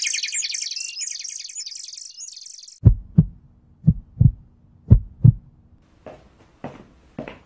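Sound effects over title cards: a high, rapidly fluttering chirp that fades out and stops about three seconds in. Then come three deep double thumps about a second apart, like a heartbeat, over a faint low hum, and lighter beats start near the end.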